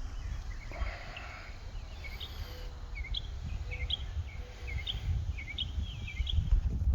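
Small birds chirping in short, quick, repeated high notes over a steady low rumble.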